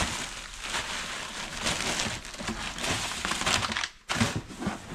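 Clear plastic bag crinkling and rustling as hands dig a wrapped item out of a cardboard box, with a brief pause just before four seconds in.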